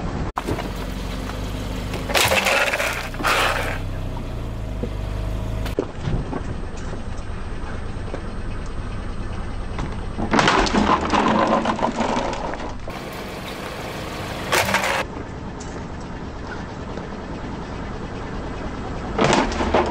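A car tyre rolling onto a plastic toy road roller, the plastic cracking and crunching in several loud bursts over the steady low running of the car's engine.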